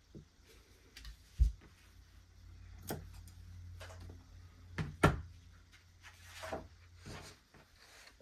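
Hands working fabric at a cutting table: shears cutting cotton and fabric pieces rustling as they are handled and tossed aside, with a few sharp knocks on the table, the loudest about a second and a half in and again about five seconds in.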